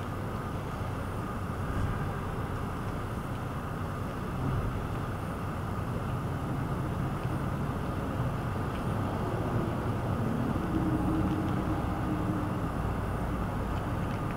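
Steady low rumble of distant city traffic, with a faint engine hum rising and fading about two-thirds of the way through.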